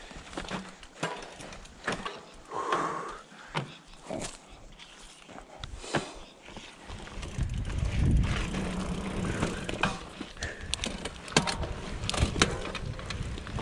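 Mountain bike going downhill on a rough trail: the bike rattles and clicks over bumps, with a stretch of low rumble around the middle.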